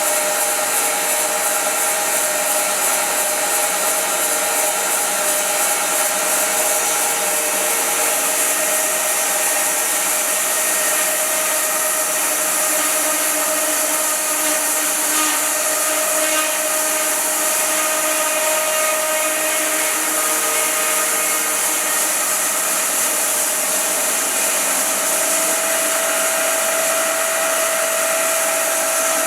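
Wide-cut bandsaw mill running steadily, its band blade sawing through a large silver maple log: a continuous high hiss with a few steady tones under it.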